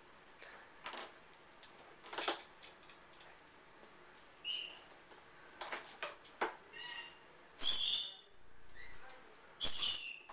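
A dog rummaging with its head in a plastic caddy of cleaning bottles: light knocks and rustles, then several short high-pitched squeaks, the two loudest near the end.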